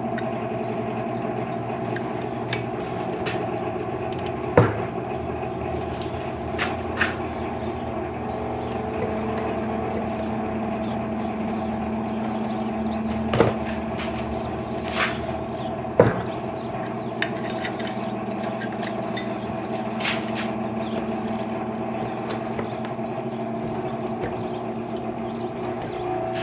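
Steady machine hum in a workshop, with scattered metal clinks and knocks of tools being handled; the three loudest knocks come about 4.5, 13.5 and 16 seconds in.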